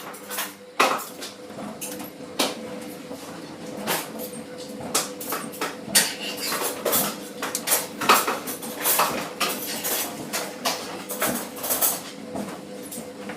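Laundry machine drum turning, with a steady motor hum under irregular clattering and clinking knocks.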